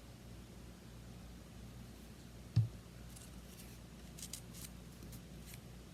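Quiet paper crafting at a table: a single soft thump about two and a half seconds in, then faint rustles and light clicks of paper pieces being handled, over a low steady hum.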